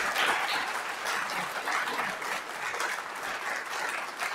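Audience applauding: a dense clatter of many hands clapping that eases off slightly over the few seconds.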